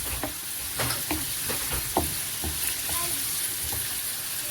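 Chicken breast pieces sizzling as they fry in hot oil in a pan, with a steady hiss and a utensil scraping and knocking against the pan at irregular moments as they are stirred.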